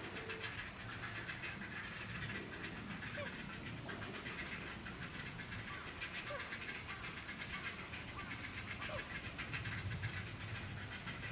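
Great white pelican chick begging calls: rapid pulsed calls coming in repeated bouts of a second or two.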